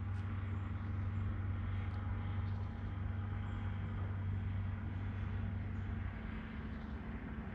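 Steady low mechanical hum over a faint hiss, with no separate events.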